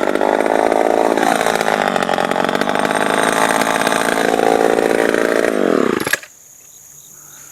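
Homelite Super XL two-stroke chainsaw running at high revs. The pitch dips a second or so in and climbs back, then winds down and cuts off suddenly about six seconds in.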